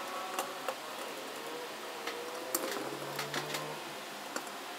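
Hand screwdriver turning screws into the perforated aluminium heatsink on a TV power-supply board: scattered light clicks of metal on metal, with a few faint rising squeaks as the screws turn.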